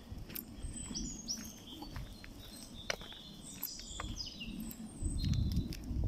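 Small birds chirping and calling: short high notes and quick downward-slurred whistles, over footsteps on a dirt path that grow louder near the end.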